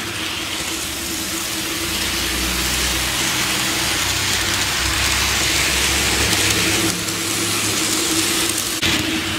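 N gauge model trains running on track, mainly a model freight train of a locomotive and oil tank wagons: a steady rolling hiss from wheels on rail with a low motor hum, growing somewhat louder in the middle. The Class 92 model's coreless motor runs almost silently, so most of the noise comes from the freight train.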